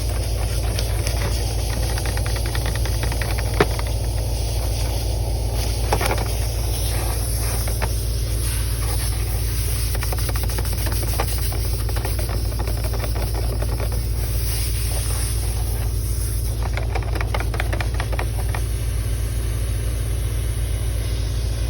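Motor-driven vent cleaning equipment running steadily: a low motor hum with a hiss of rushing air and patches of fine rattling, and one sharp click a few seconds in.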